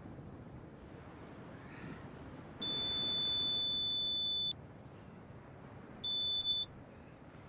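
Metal-detecting pinpointer sounding its alert: a steady high electronic tone for about two seconds, then a shorter one about a second and a half later that wavers at its end, the sign of metal close to its tip. Low surf noise runs underneath.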